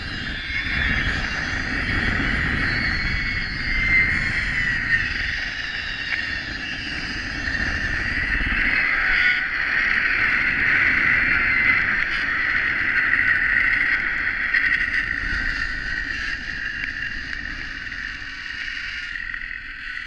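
Zip-line trolley pulleys running fast along the steel cable, a steady high whir with wind rushing over the microphone. It swells in the middle and fades over the last few seconds.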